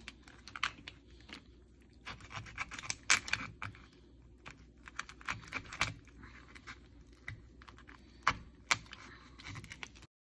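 Kitchen knife scraping and prying through the shell of a cooked lobster tail: an irregular run of small clicks, crackles and scrapes, with a few sharper snaps about three seconds in and again past eight seconds.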